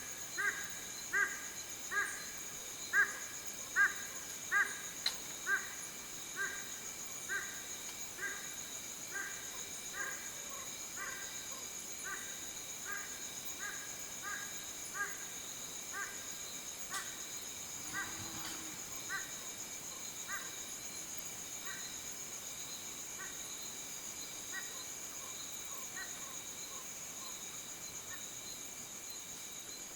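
Madagascar owl giving a long series of short, evenly repeated calls, quick at first, then slowing and growing fainter until they die out near the end. A steady high-pitched insect drone runs underneath.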